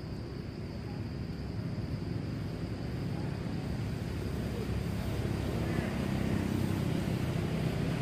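Steady low outdoor rumble that grows slowly louder, with a few faint high chirps over it.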